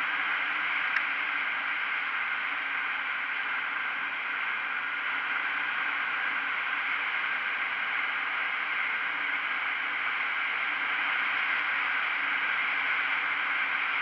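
Steady rush of wind and road noise from riding a KTM Duke 125 motorcycle at an even cruising speed, with its single-cylinder engine faint underneath. A single short click about a second in.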